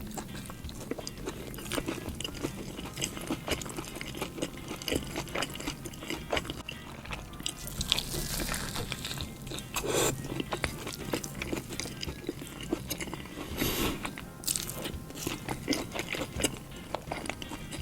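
Close-miked eating sounds from a chicken burger: crunchy bites and chewing, with many short crackles and a few louder bites about ten and fourteen seconds in.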